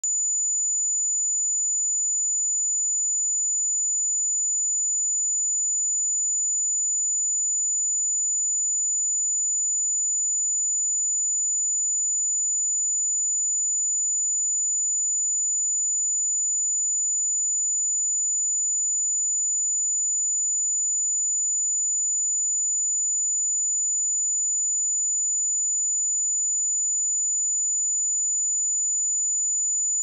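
A steady 6985 Hz sine-wave test tone, one pure high-pitched tone held unchanged at a constant level.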